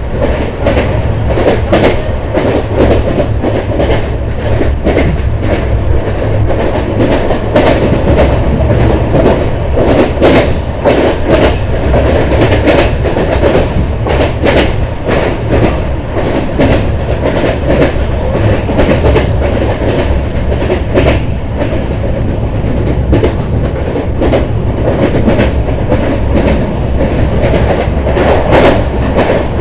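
LHB passenger coach running at speed, its wheels rumbling on the rails with frequent clicks and clacks over the track, heard from the open doorway of the coach.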